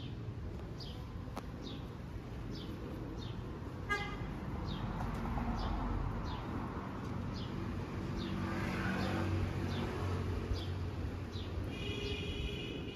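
Street ambience: a bird repeats a short high chirp about every two-thirds of a second over low traffic rumble. A car horn toots briefly about four seconds in and again near the end.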